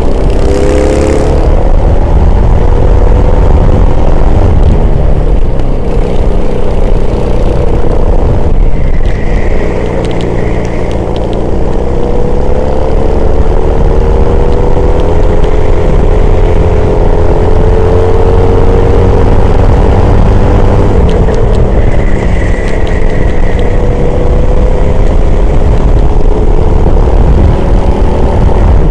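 Racing engine running hard at high revs, its pitch rising and falling as it accelerates and slows through the corners. A short high-pitched squeal comes about nine seconds in, and again about twenty-two seconds in.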